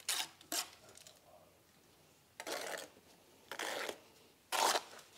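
Short scraping strokes of a steel mason's trowel working wet mortar onto a brick, buttering the head joints of a closure brick before it is set into the wall. About five brief scrapes, spaced unevenly.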